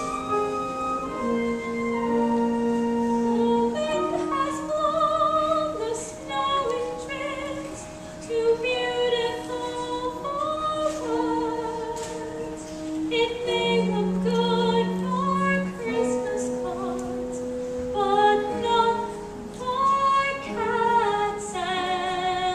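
Music: voices singing long held notes with vibrato over an instrumental accompaniment, several parts sounding at once.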